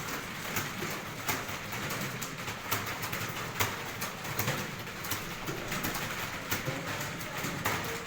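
Computer keyboard keys clicking in quick, irregular strokes during typing practice.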